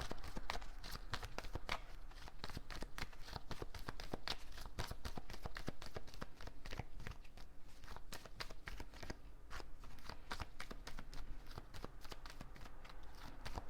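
Tarot cards being shuffled by hand: a rapid, uneven run of soft card flicks and slaps.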